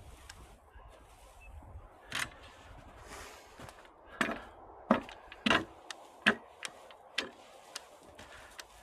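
A hand tool knocking and scraping while spreading old straw-and-pine-shaving coop litter over the ground: about six sharp, irregular knocks, the loudest in the middle of the stretch.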